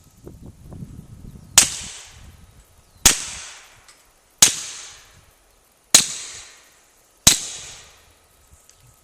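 Five suppressed pistol shots from an HK USP45 Tactical fitted with a SilencerCo Osprey 45 suppressor, shot dry with 230-grain ball ammunition, heard from downrange of the muzzle. The shots come about one and a half seconds apart, each a sharp crack with a trailing echo.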